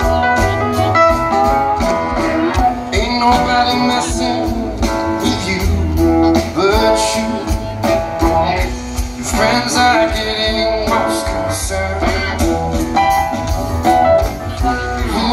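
Live rock band playing, recorded from the audience: an electric guitar over drums and bass, with a man singing.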